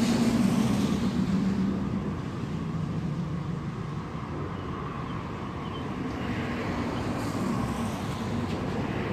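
Road traffic: a car passes just as the sound begins and fades over the next two seconds, and a second car swells past from about six to eight seconds in.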